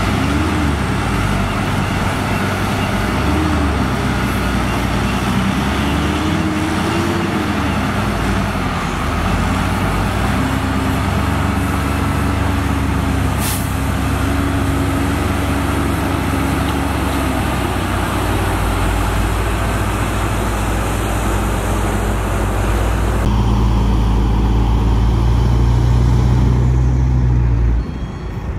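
Heavy diesel engines of a wheel loader and a loaded dump truck running hard, their pitch rising and falling as the loader tries to pull the truck out of soft sand. A short hiss comes about halfway through. The low engine note is louder in the last few seconds, then drops off sharply just before the end.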